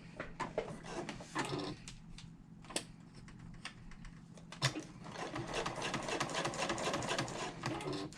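Sewing machine stitching through two layers of bag strap along a diagonal seam, running steadily in the second half after a few clicks and handling sounds.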